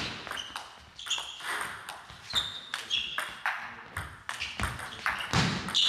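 Table tennis rally: the celluloid-type plastic ball clicking sharply off bats and table in turn, a hit about every half second, with a short ringing after each in the hall.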